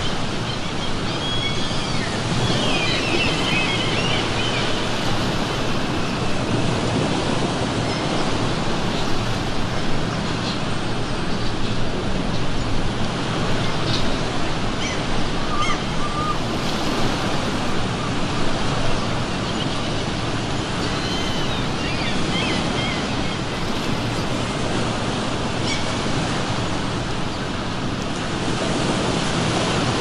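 Steady ocean surf washing on the shore, with seagulls calling a few times over it.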